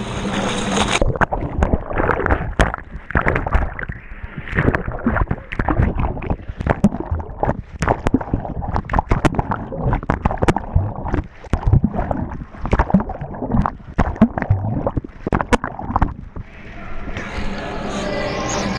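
Pool water heard from a camera plunged underwater: a splash, then muffled churning and gurgling with many irregular knocks and thumps as the camera is tumbled about. Near the end the camera comes up out of the water and the sound opens up again.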